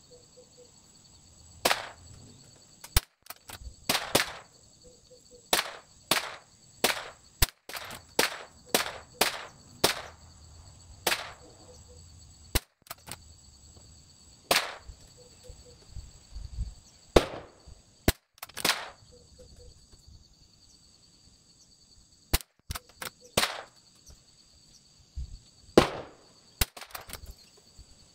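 Rimfire rifle shots at an outdoor range: a string of sharp cracks, about one every second or so and uneven in loudness, with a lull of a few seconds about two-thirds through. The shots come too fast for one bolt-action rifle, so several rifles are firing.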